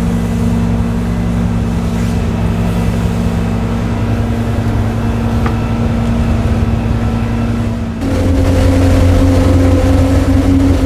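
Motorboat engine running steadily at cruising speed. About eight seconds in, the engine note jumps abruptly to a slightly higher, louder pitch.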